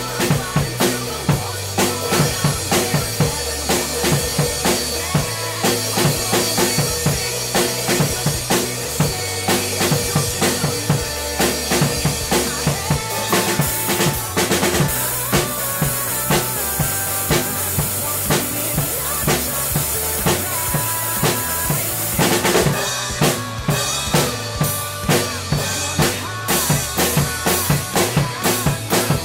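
Acoustic drum kit played to a rock song's backing track: a steady bass drum and snare beat with crash and ride cymbals, over the band's held bass notes and guitars in an instrumental passage without vocals.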